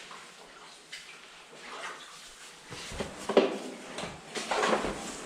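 Scuffing footsteps and shuffling on wet sand and rock in a cave passage, with a sharp knock about three and a half seconds in.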